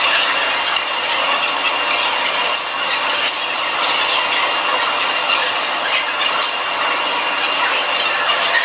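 Steady running noise aboard a large car ferry under way: an even hiss with a thin, high, steady whine, and light irregular clicking and rattling.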